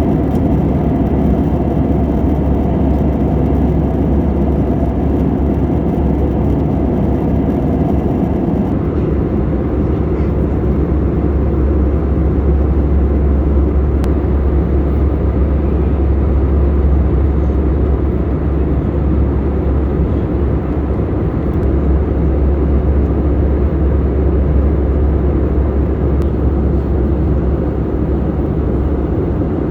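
Steady cabin noise of an Airbus A320-214 in flight: a loud, even drone of its CFM56 jet engines and rushing air, heaviest in the low end. About nine seconds in the higher hiss thins a little while the low drone carries on.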